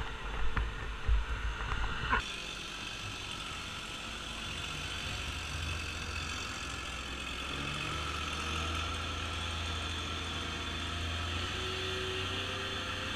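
A few knocks and wind rumble on a helmet-mounted camera, then, about two seconds in, a cut to the steady whir of a quadcopter drone's motors and propellers, picked up by the camera the drone carries.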